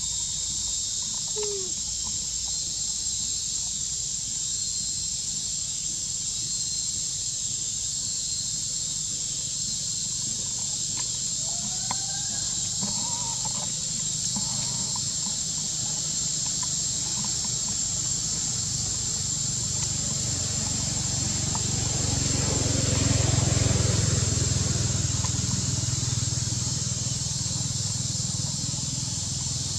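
Outdoor ambience dominated by a steady, high-pitched drone of insects, over a low rumble. A few faint short calls come near the start and about twelve seconds in, and the low rumble swells and fades about two-thirds of the way through.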